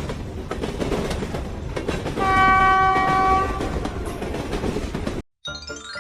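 Train running with rolling rail clatter, and a horn blast of a bit over a second about two seconds in. The train sound cuts off suddenly about five seconds in, and a short musical jingle follows.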